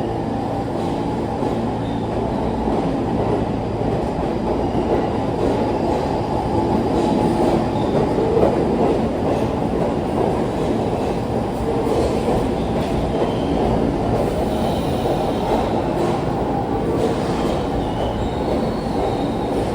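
R46 subway train running on the rails, a steady loud rumble of wheels and car body with brief faint wheel squeals now and then.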